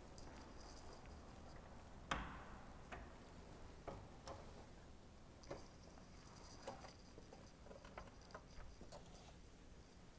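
Very quiet room tone with faint, irregular taps and clicks, the sharpest about two seconds in.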